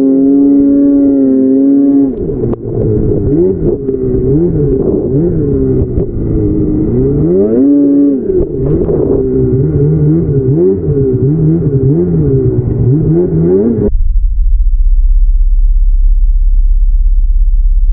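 Snowmobile engine being ridden hard, its pitch rising and falling over and over as the throttle is worked. About three-quarters of the way through, the engine sound cuts off abruptly and a steady low rumble remains.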